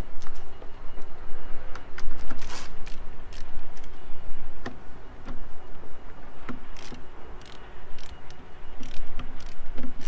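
Hand screwdriver backing out the screws that hold a car subwoofer in its box: scattered, irregular clicks and short scrapes of the tool on the screw heads, and loose screws clinking in the hand, over a steady low rumble.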